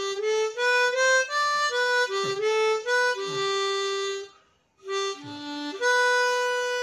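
Easttop T008K diatonic harmonica in the key of G played in a short phrase of single notes, with a brief pause a little past halfway and a long held note near the end.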